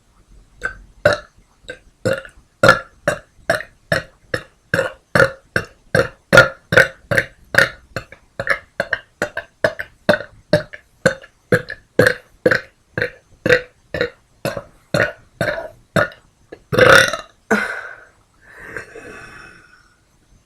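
A woman burping, a rapid string of short, loud burps at about two to three a second, made by swallowing air. It ends with two longer, louder burps and a fainter drawn-out one.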